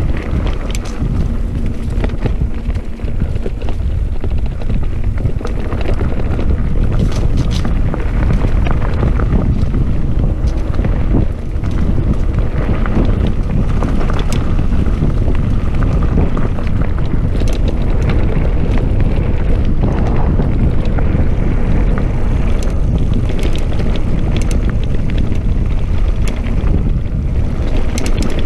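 Mountain bike riding a dirt trail: wind buffeting the microphone with a steady low rumble of tyres on dirt, and scattered clicks and rattles as the bike goes over bumps.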